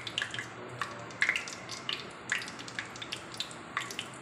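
Cumin seeds sizzling in hot oil, with irregular crackles and pops over a steady hiss.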